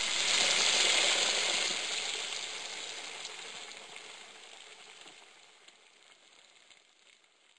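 Squid sizzling and crackling on a hot barbecue grill, loud at first and steadily dying away over several seconds.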